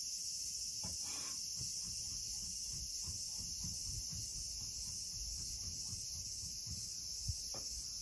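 Steady, high-pitched chorus of insects, such as crickets, with faint low knocks underneath and a small thump near the end.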